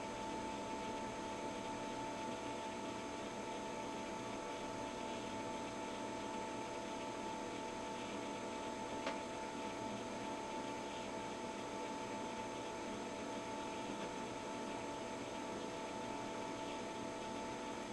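Steady electrical hum with a constant high tone, from powered-up bench test equipment; one short click about nine seconds in.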